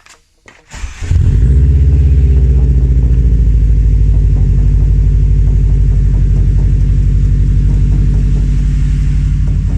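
Subaru WRX's flat-four boxer engine starting about a second in and then idling steadily with a loud, low, pulsing rumble.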